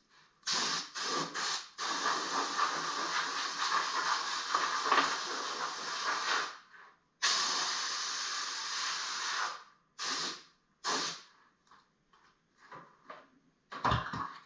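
Compressed-air blow gun blowing dust off sanded wood, hissing in bursts: three short blasts, then two long ones of several seconds each, then two more short blasts.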